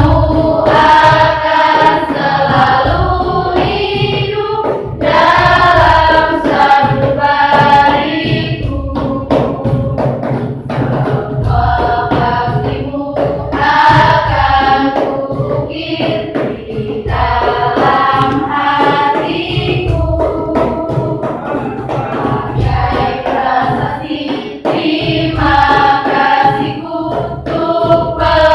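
School choir singing a song, the voices rising and falling in phrases a few seconds long.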